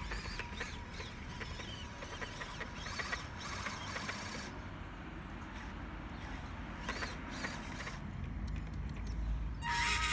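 Drivetrain of a 1/16 scale WPL B36 Ural-4320 RC truck running, with a steady whine from its small brushed motor and gears. Spells of rapid clicking come in the middle as the rear prop shaft slips on the brass pinion shaft. A louder whir comes near the end.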